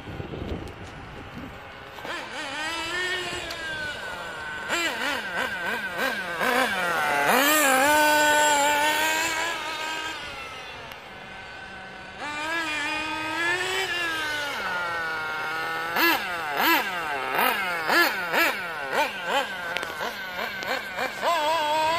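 Nitro engine of a Losi 8IGHT RC buggy geared with a 14-tooth clutch bell, revving up and down in a series of rising and falling whines as the buggy is driven. It is loudest about eight seconds in, dips quieter, then a run of quick throttle blips comes near the end.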